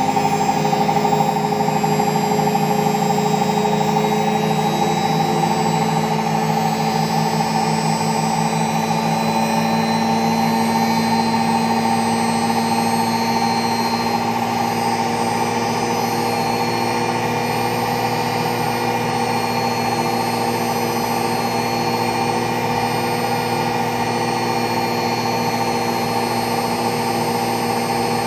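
Front-loading washing machine spinning its empty drum at high speed: a steady mechanical hum with a fixed high tone over a lower one, easing slightly in level in the first few seconds, then holding even.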